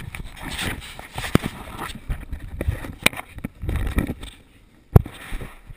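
Rustling and scraping of a chest-mounted action camera rubbing against clothing and rope during a rope climb over a wall, broken by several sharp knocks, the loudest about five seconds in.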